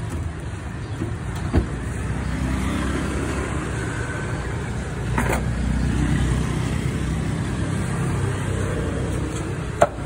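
Steady low rumble of motor traffic, with an engine note rising and falling and a couple of single knocks.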